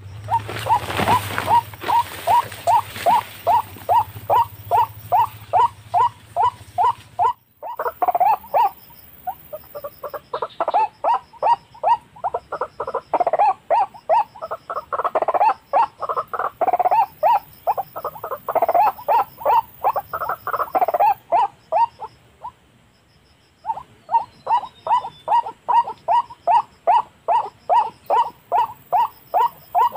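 White-breasted waterhens (ruak-ruak) calling: a croaking 'ruak' note repeated about twice a second in long, even runs with a couple of short breaks. The calls come from a lure recording and a wild waterhen answering it. A low hum runs under the first seven seconds.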